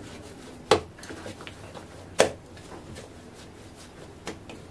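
Soft bhatura dough being kneaded by hand on a stone countertop, with two sharp thumps about a second and a half apart as it is pressed down on the counter, a lighter one near the end, and faint soft handling sounds between them.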